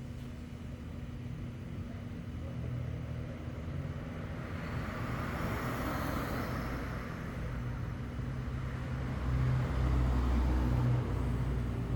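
A car engine runs with a low, steady rumble. A rushing noise swells and fades around the middle, and the rumble grows louder near the end.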